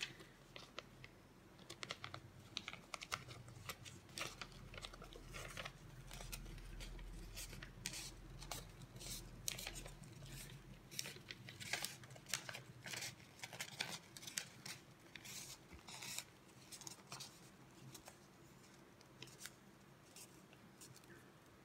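Newspaper crackling and rustling faintly in many short crisp bursts as a strip is rolled tightly around a thin stick into a paper tube. The crackles thin out near the end.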